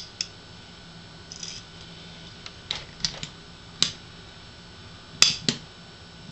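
Small metal clicks and taps as the parts of a SAR Arms B6P pistol slide are handled and fitted back together by hand: about seven scattered sharp clicks, the loudest two close together about five seconds in.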